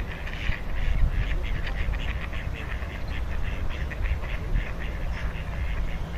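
Mallards quacking in rapid, repeated calls, over a steady low rumble.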